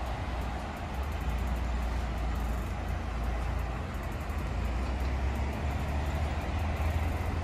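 Steady road traffic on a busy multi-lane road: a continuous wash of passing cars with a deep low rumble.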